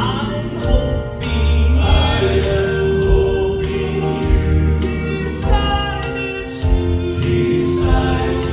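A Southern gospel male quartet singing in close four-part harmony into handheld microphones over an instrumental accompaniment with a strong, pulsing bass.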